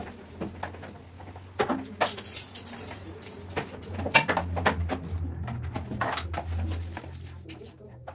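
Handling noise from a phone being picked up, carried and set down: scattered knocks, clicks and rubs, the loudest knock about four seconds in, over a steady low hum.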